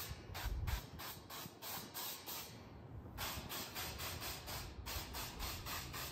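Spray bottle of cooking oil spritzing in quick repeated squirts, about three a second, with a short pause about halfway through, as oil is misted onto the steel inside of a pellet grill to season it.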